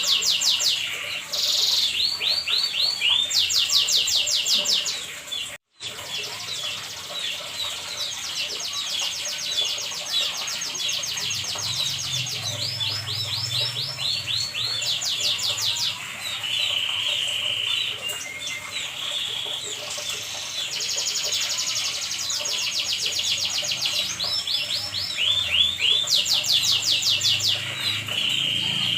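Domestic canary singing a long, continuous song of rapid trills and rolling repeated notes, high-pitched, changing from one trill to the next every second or two. The song breaks off for a split second about six seconds in.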